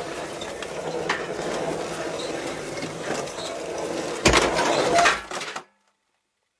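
Hard objects clattering and rattling continuously, with a louder burst of clatter about four seconds in, then a sudden cut to silence.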